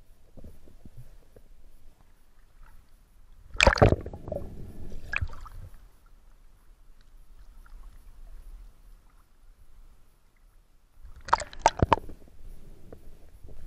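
Water splashing and sloshing around a freediver at the lake surface. There is a loud splash about four seconds in, then quieter gurgling and lapping, then a quick run of splashes near the end as he dives back under.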